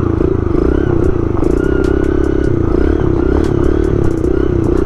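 Small motorbike engine being ridden, its note wavering up and down as the throttle is worked, with light clatter over it. The engine is boggy, which the rider puts down to it being too cold.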